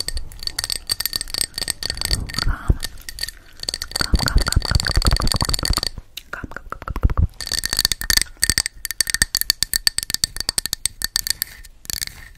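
Long fingernails tapping and scratching rapidly on a glass candle jar held close to a microphone, the glass ringing faintly. In the middle stretch the jar is rubbed and gripped with a deeper rumble, and the tapping stops briefly about six seconds in before starting again.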